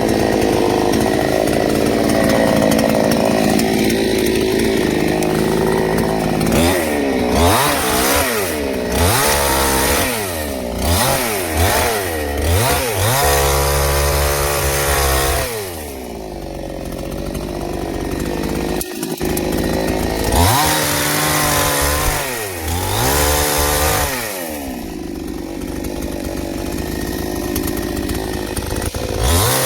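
Chainsaw engine running steadily, then revved up and down over and over from about six seconds in, each rev rising and falling in pitch.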